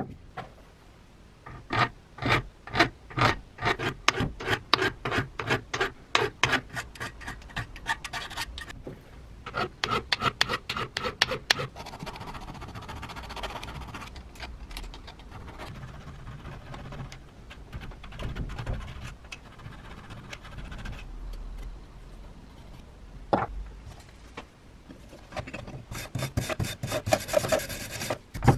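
A hand file rasping in repeated strokes across the rusty steel threads of an antique spiral jack's screw. Near the end, a brush scrubs fast over the wet cast-iron jack body.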